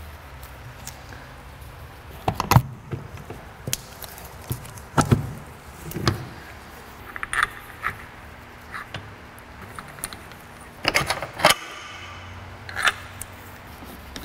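Metal hand tools and parts clinking and clanking as they are handled and set down: about eight separate knocks, the loudest about two and a half, five and eleven seconds in, with a couple of short ringing clinks.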